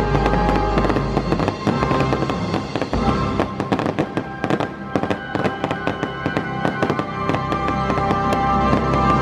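Fireworks bursting and crackling, many sharp pops in quick succession, with music playing.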